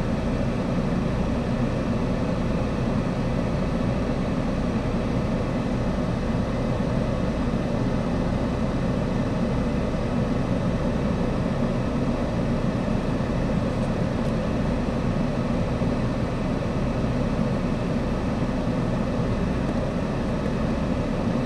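Car engine idling steadily with the car standing still, a constant low hum heard from inside the car.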